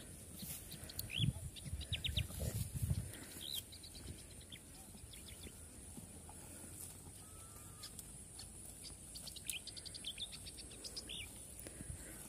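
Small birds chirping in short calls and quick trills, over a steady high insect drone. A cluster of low thuds about one to three seconds in is the loudest part.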